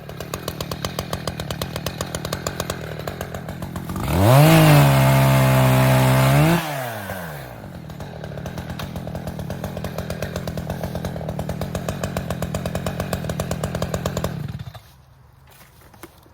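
Gas chainsaw idling with a pulsing putter. About four seconds in it is revved to full throttle for a couple of seconds, then drops back to idle. Near the end the engine cuts off suddenly.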